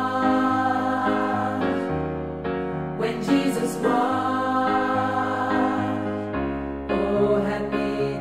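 A choir singing a gospel-style song in sustained chords over instrumental accompaniment with a moving bass line.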